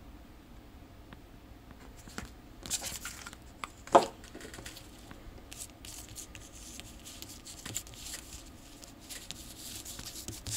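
Stack of glossy paper stickers being handled and slid across a table, with papery rustling in a few short bursts and one sharp tap about four seconds in.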